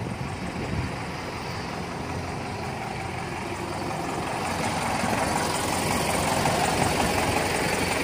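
Case 580 Super L backhoe's diesel engine idling steadily, growing a little louder about halfway through.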